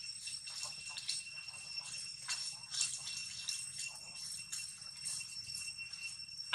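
Forest ambience: a steady, high-pitched drone of insects with many short, high chirps scattered irregularly through it.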